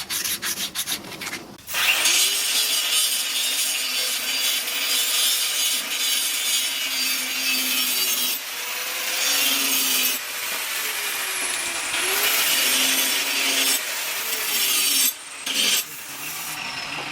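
Abrasive work on a knife: quick rasping strokes for the first couple of seconds, then a continuous grinding hiss with a faint motor tone that dips and recovers, as on a powered grinder or sander.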